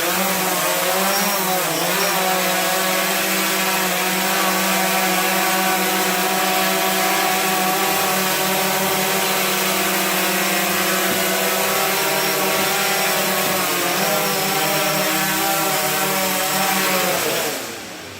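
DJI Phantom 3 Standard quadcopter's four motors and propellers spinning up, buzzing with a steady high whine, and spinning down near the end. The pitch wavers briefly about two seconds in and again near fourteen seconds as the motor speeds change.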